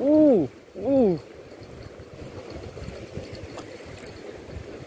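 Two drawn-out excited vocal whoops, each rising then falling in pitch, right as a fish strikes the line; then sea water washing steadily against shore rocks.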